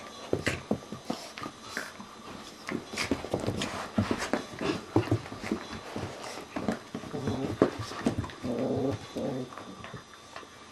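Italian Greyhound and Ibizan hound puppies play-fighting on carpet: scuffling with many short clicks and knocks of paws and jaws. A stretch of puppy growling and whining comes about seven to nine seconds in.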